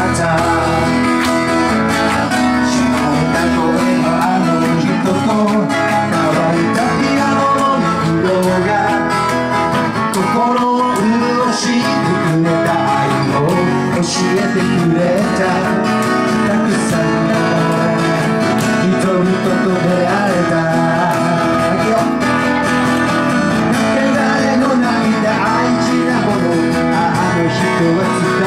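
Live acoustic guitars strumming a steady, upbeat song.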